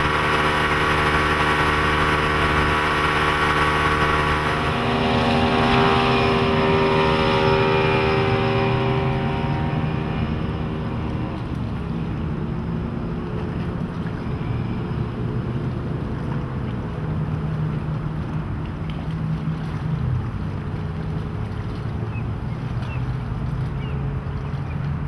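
Johnson 150 HP Ocean Runner V6 two-stroke outboard running at speed, a steady multi-tone drone up close. Its pitch shifts between about five and eleven seconds in, and from there it is a lower, more distant drone of the boat planing across the water, with some wind noise.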